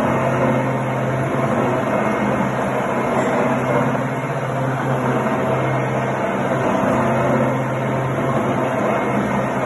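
Milling machine running steadily, an even mechanical noise over a low hum.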